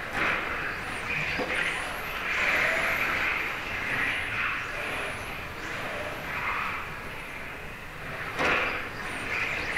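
1:10 electric touring cars racing on a carpet track: the whine of their electric motors and the hiss of tyres swelling and fading as they accelerate and brake through the corners, with short rising whines on the straights.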